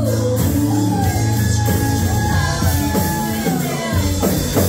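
Live band playing amplified music: a lead singer with electric and acoustic guitars and drums.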